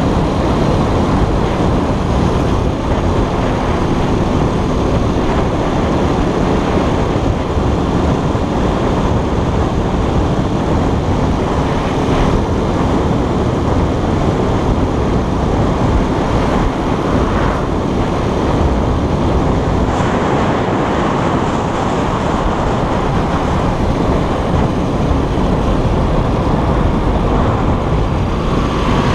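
Keller Crono 110 scooter riding along at a steady speed: wind rushing over the onboard camera microphone, with the scooter's small engine running steadily underneath.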